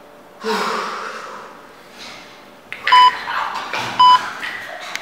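A man's pained groan, then two short electronic beeps about a second apart, each a steady high tone and louder than the groan.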